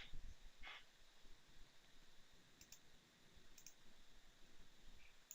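A few faint computer mouse clicks over near-silent room tone.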